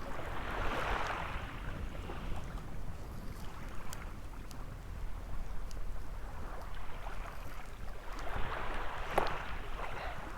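Small waves washing onto a sandy beach, the surf swelling about a second in and again from about seven seconds, over a steady rumble of wind on the microphone.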